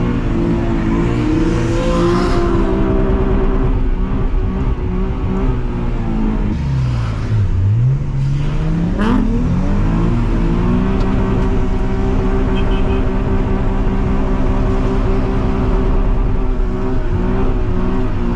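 Drift car engine at high revs. About seven seconds in the revs drop steeply and then climb fast again, with a sharp crack as they rise. The engine then holds a steady high note and falls away near the end.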